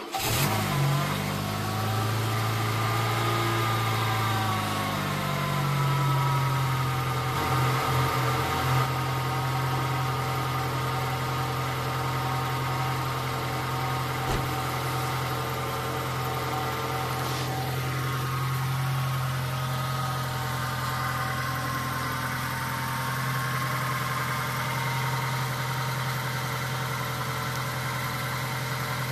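Citroën Xantia 2.0's engine just started from cold after standing for about a year. Its revs waver and rise for the first few seconds, then settle into a steady idle.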